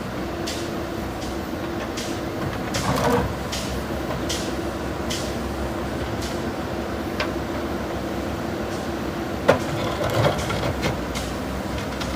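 JCB 3DX backhoe loader's diesel engine running steadily, with scattered knocks and clatter from the bucket working broken concrete. A sharp clank about nine and a half seconds in is the loudest.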